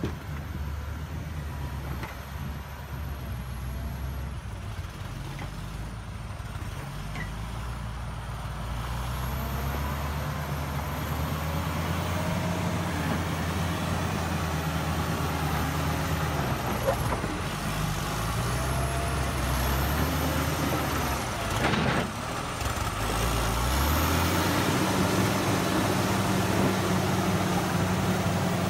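John Deere 670CH motor grader's diesel engine running as the machine grades dirt, getting louder as it comes close, its pitch shifting up and down several times. Near the end a short sharp noise is followed by the engine picking up to a higher, steady pitch.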